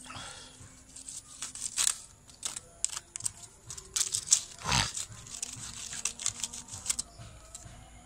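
A cat sneezes once, sharply, about five seconds in, amid light crinkling and clicking rustles.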